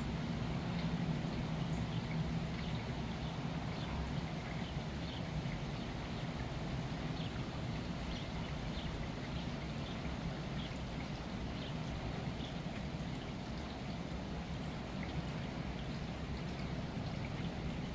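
Steady rain with water trickling and dripping off the roof, with faint short ticks scattered through it. A low droning hum is heard in the first couple of seconds and fades out.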